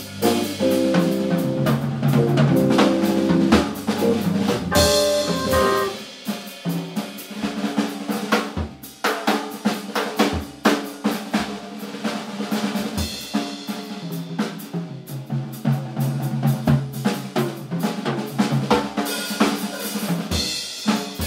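Live jazz from an organ, electric guitar and drum kit trio. Held organ chords over drums give way about six seconds in to a stretch where the drums lead with only sparse notes, before the chords fill in again.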